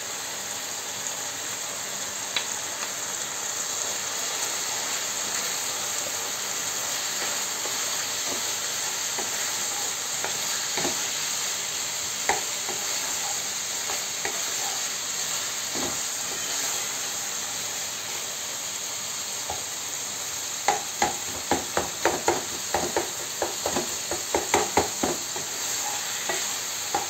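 Diced chicken and chopped bell peppers sizzling steadily in a frying pan as a wooden spatula stirs them. From about 20 seconds in comes a quick run of sharp knocks from the spatula.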